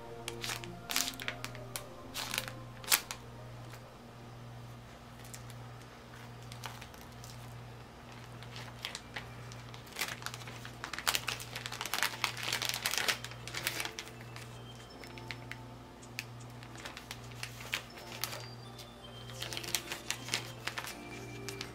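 Thin plastic food bag crinkling in short bursts as it is rubbed open and a slice of cake is slid inside, the busiest handling about halfway through and again near the end. Soft background music with a slow, steady low pulse runs underneath.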